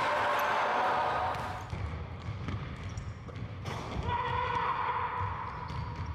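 A basketball bouncing off a hardwood gym floor, a few sharp knocks, with voices and gym noise louder at first and a steady high tone from about four seconds in.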